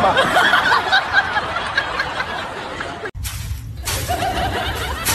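People laughing, several voices overlapping for about three seconds, cut off abruptly. A steady low hum follows.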